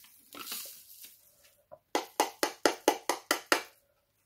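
Diamond-painting rhinestones tipped from a bag into a small plastic tray: a soft rustling hiss, then a quick run of about nine sharp clicks, about five a second, as the last stones are shaken out of the bag.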